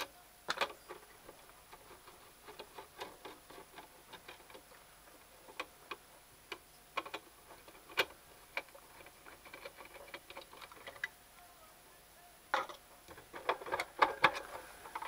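Irregular small clicks and taps of a screwdriver and hands on the plastic housing and circuit board of a variable frequency drive as it is being taken apart, with a denser run of clicks about two-thirds of the way through and near the end.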